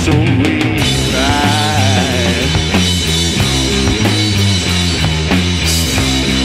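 Instrumental passage of a rock song: electric guitar over a steady drum-kit beat, with a wavering held note about a second in.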